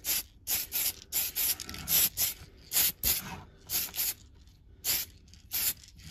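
Aerosol spray can of TS-46 light sand paint hissing in a quick series of short bursts, often in pairs, a couple each second, as paint is applied to the models in light passes.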